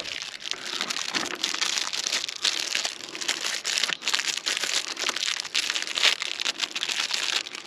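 Plastic packaging crinkling and crackling continuously as hands work at a clear plastic bag, trying to open it.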